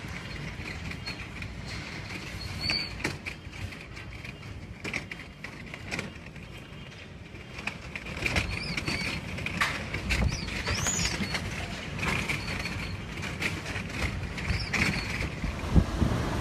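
Typhoon-force wind rushing and buffeting, with frequent knocks, rattles and bangs of loose material and a few short high squeals.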